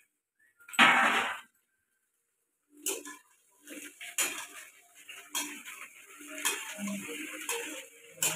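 Long steel spatula scraping and knocking against a steel kadhai as okra and onions are stirred, one stroke roughly every second from about three seconds in. A single louder metal clatter about a second in.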